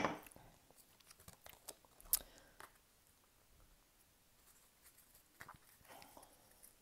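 Oracle cards being handled: a sharp snap right at the start, then faint, scattered clicks and taps of cards being shuffled and laid down.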